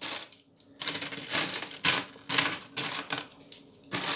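A heap of copper-coloured euro cent coins in a plastic bowl clinking and rattling as fingers pick through and slide them, in several short clattering bursts.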